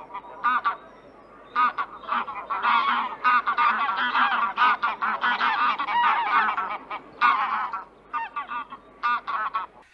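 A flock of flamingos calling: many short, nasal calls overlapping one another, densest through the middle and thinning out near the end.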